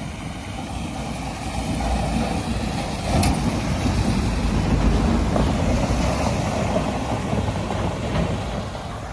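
Small pickup truck driving past through a flooded, muddy road: its engine running and its tyres splashing through the water. The sound grows louder as it comes alongside, about three seconds in, and fades as it drives away.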